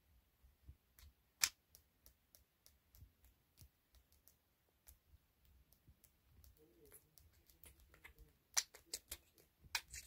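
Scattered soft clicks and ticks from a budgerigar's beak, with a sharper click about a second and a half in and a quick run of clicks near the end.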